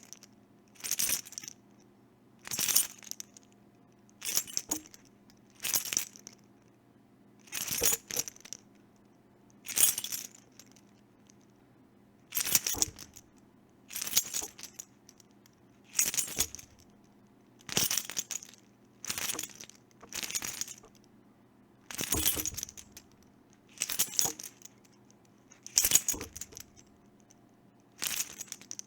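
A bunch of keys shaken in short jangling bursts, each under a second long, repeating about every one and a half to two seconds with quiet between.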